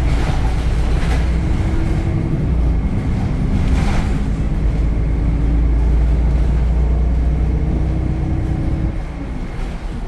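Temsa Avenue LF city bus under way, its DAF diesel engine and ZF automatic gearbox running with a loud, steady low drone and a whine that changes pitch in steps. There are a few short rattles near the start and about four seconds in, and the drone eases off about nine seconds in.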